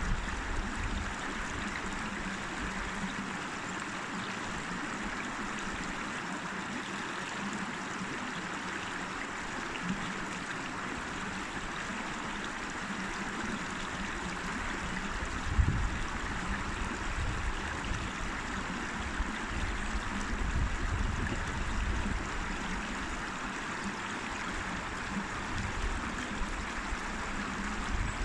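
A river flowing, a steady rush of water. Occasional low rumbles come up under it, the clearest about halfway through.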